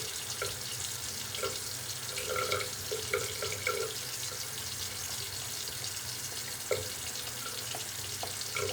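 Water running steadily from a bathroom sink tap during a wet shave, with a few short, soft sounds on top around two to four seconds in and again near seven seconds.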